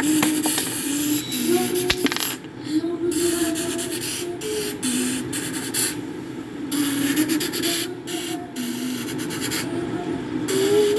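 A voice humming a tune of held notes that step up and down, over a hissing noise that comes and goes.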